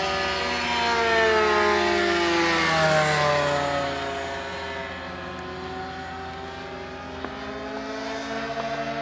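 Model airplane engines buzzing as two RC planes fly past, their pitch sliding up and down with each pass. Loudest in the first few seconds, then fainter as the planes move off.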